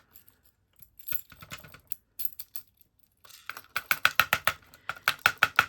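Small metal lock parts clicking and rattling as the lock is taken apart. A few scattered light clicks come first, then a fast run of sharp metallic clicks, several a second, about halfway through.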